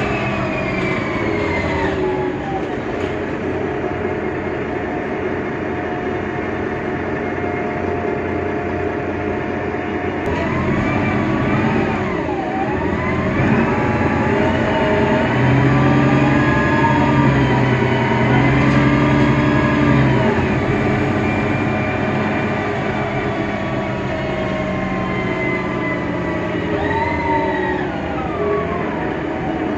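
Mercedes-Benz Citaro O530 Ü city bus's OM 906 hLA diesel engine and Voith DIWA automatic gearbox running with a whine whose pitch falls near the start as the bus slows, rises with a dip as it pulls away and shifts about a third of the way in, holds steady and loudest in the middle, and falls again near the end.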